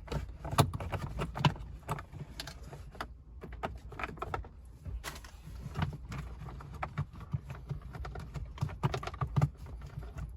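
Irregular clicks, taps and rustling as hands push RCA cables behind plastic dashboard trim.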